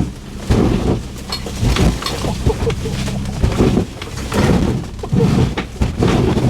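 Land Rover Discovery lurching over rough off-road ground with its engine running: a string of loud knocks, bangs and clatters from the body and suspension, about one every half second to a second.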